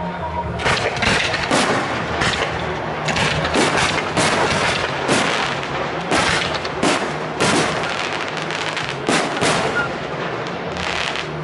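Fireworks display: a steady run of shell bursts, bangs and crackles, several a second, with music playing underneath.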